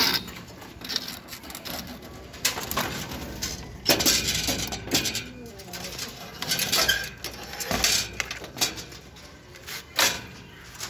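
Irregular metallic clinks and knocks from a large aluminum folding cage being handled.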